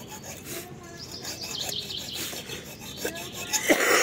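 Repeated hand-filing strokes, a file rasping on the spear's point as it is shaped by hand instead of with a grinder, with a louder burst of scraping noise near the end. Birds chirp in the background.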